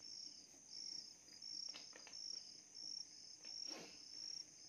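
Insect chirping steadily in the background, short high chirps repeating about twice a second, with a brief rustle about three-quarters of the way through.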